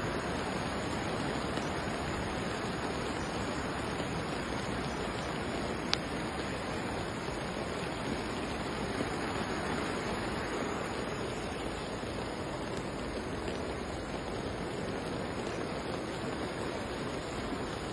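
Muddy floodwater rushing across a street in a steady, even roar of flowing water, with a single sharp click about six seconds in.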